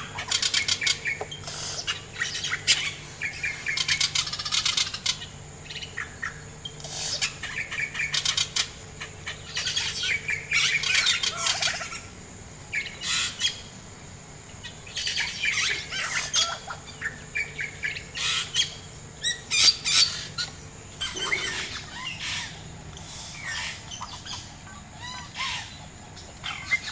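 Rainforest ambience: many birds calling and chirping in irregular bursts over a steady, high-pitched insect drone.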